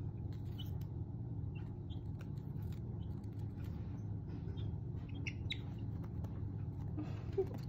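Leghorn chicks giving short, soft high peeps now and then, with two clearer peeps about five seconds in, over a low steady background hum.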